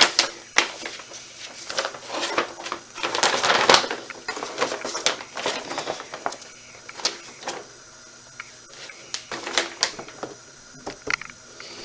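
Hard plastic parts of a pet water fountain being handled: irregular clicks and taps, with a short spell of rustling and clattering a few seconds in.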